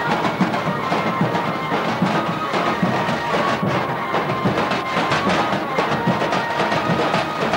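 Band music: drums beating steadily under held wind-instrument notes.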